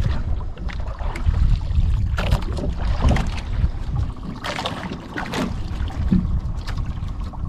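Wind rumbling on the microphone and water sloshing against the hull of a small outrigger boat, with a few short splashy noises along the way.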